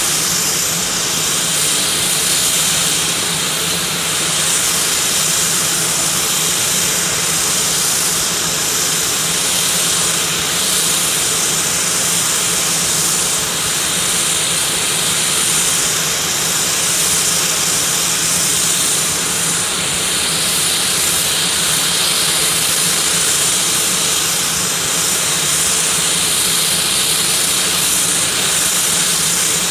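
Basler BT-67's Pratt & Whitney Canada PT6A-67R turboprop engines running steadily at ground idle: a loud, even turbine hiss and high whine over a low hum.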